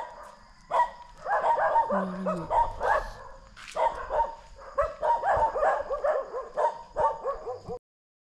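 A dog barking over and over in quick runs of short barks, which stop suddenly near the end.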